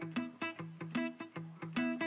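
Background music: a plucked string instrument playing a quick run of notes, about four or five a second.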